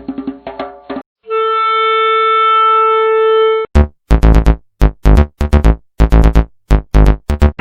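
A sequence of short synthetic sound-effect clips. A tapping rhythmic pattern ends, then a steady held electronic tone sounds for about two and a half seconds. After it stops comes a rapid run of sharp electronic hits, each sweeping quickly down in pitch, about three or four a second.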